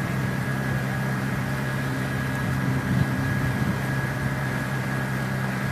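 A boat's outboard motor running steadily, a low even hum with a faint high steady tone above it.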